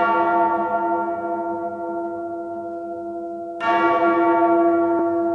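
A bell tolling twice: each strike rings with many overtones and fades slowly, and the second strike comes about three and a half seconds in.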